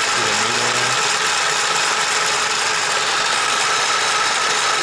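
Small battery-powered plastic White sewing machine running steadily at a very high speed, its little motor and needle mechanism going with an even mechanical whir.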